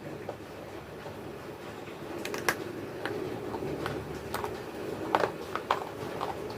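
Crunchy clay being chewed close to the microphone: irregular sharp crunches, a few at a time, most of them from about two seconds in.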